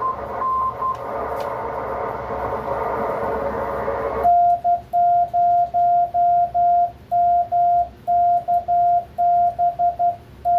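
Shortwave receiver hiss with a faint Morse code signal being received near 1 kHz. About four seconds in, the receiver hiss cuts off as break-in (QSK) transmitting begins. A loud, clean sidetone beep then spells out Morse code, keyed by hand on a paddle keyer.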